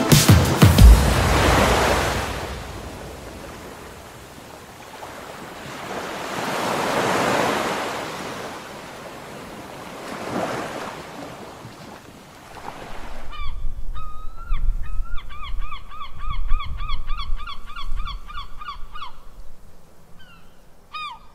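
Surf breaking on a beach, three slow swells of wash, then a bird calling in a fast series of harsh honking notes for several seconds over a low rumble of wind and sea.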